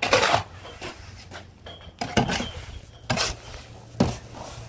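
Steel shovel scraping and scooping through wet cement-sand mortar in a metal wheelbarrow: four rough strokes, the first at the very start and the others about a second apart in the second half.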